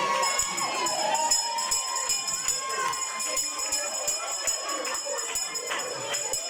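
Celebratory music with a tambourine jingling steadily, its metal jingles sounding throughout, over the murmur of the congregation's voices.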